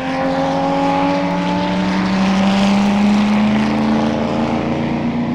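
Racing car engines at full power, their pitch climbing steadily as they accelerate, growing loudest about three seconds in and then fading a little as they pass.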